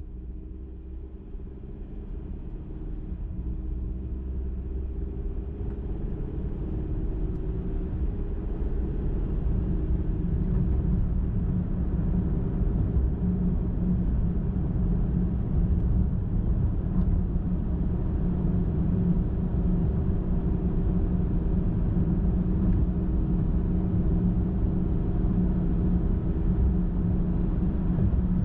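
A car driving on the highway: steady low engine and tyre rumble. It grows louder over the first ten seconds or so, then holds steady.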